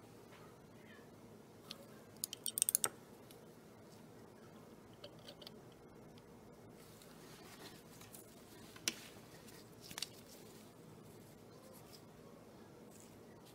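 Glass thermometer clinking against a small glass beaker while a magnesium oxide and hydrochloric acid mixture is stirred: a quick run of sharp clinks a couple of seconds in, then a few single taps later.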